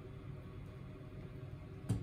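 Quiet room tone with faint handling, then a single short knock near the end as a plastic dish-soap bottle is set down beside the sink.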